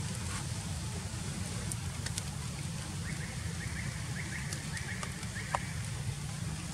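Steady low outdoor rumble with scattered light crackles and clicks. From about three seconds in, a quick run of short high chirps repeats for about two seconds.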